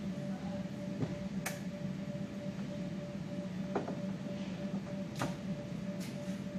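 A steady low hum, with a few short sharp clicks or taps scattered through it.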